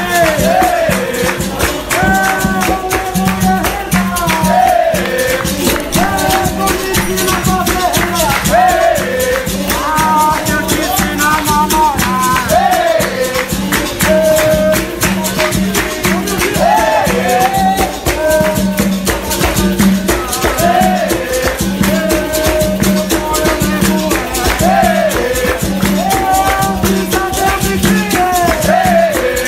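Capoeira music: a voice singing a melody over a steady percussion beat, with shaken rattles clicking throughout.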